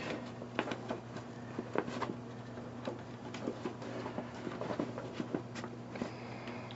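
Scattered small clicks and rustles of screws being handled and pushed through a plastic pannier backing plate and bag fabric, over a steady low hum.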